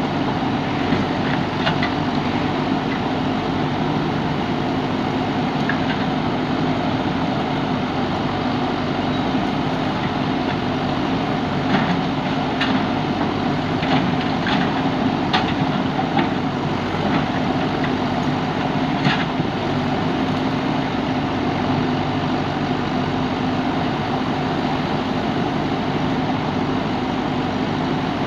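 Diesel engine of a JCB backhoe loader running steadily. A handful of sharp knocks come through in the middle stretch, typical of the bucket and stones being handled.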